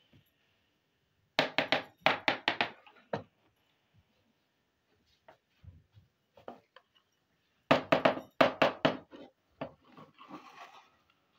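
Small hard plastic toy kitchen pieces clicking and clacking as they are handled and set down. There are two quick runs of sharp clicks, one soon after the start and one past the middle, with scattered lighter taps between them and a short scraping rustle near the end.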